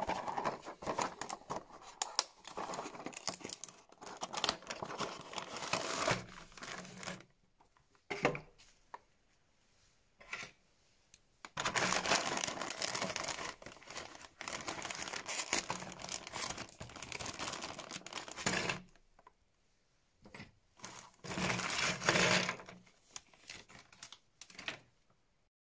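Handling of a cardboard toy box, then a clear plastic bag crinkled and torn open by hand, in several spells of crackling with short pauses between them.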